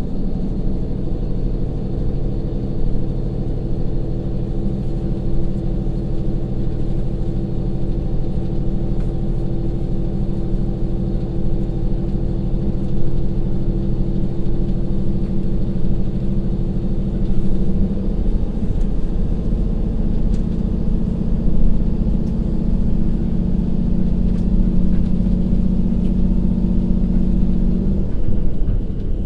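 KiHa 182-500 railcar's DML30HSJ twelve-cylinder direct-injection diesel engine working under power as the train accelerates in torque-converter drive, heard from inside the passenger cabin. Near the end the steady engine note cuts off as the transmission switches over to direct drive.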